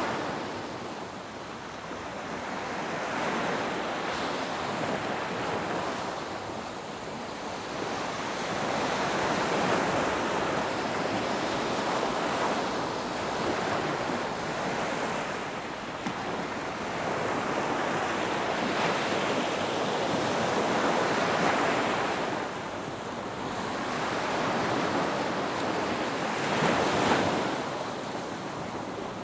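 Ocean surf breaking on a beach: a continuous wash of waves that swells louder and eases back every few seconds.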